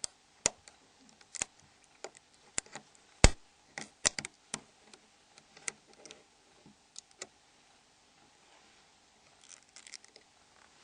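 Irregular sharp clicks and snaps of a Nokia N71 mobile phone's plastic housing parts being unclipped with small tools. The loudest snap comes about three seconds in, followed by a quiet stretch and a few faint clicks near the end.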